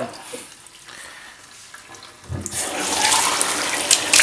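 Water poured from a cup over a wet puppy, splashing into a bathtub, starting loudly about halfway through and running on steadily.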